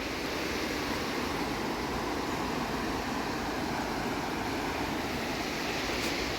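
Steady rush of a flooded river, its strong current running fast.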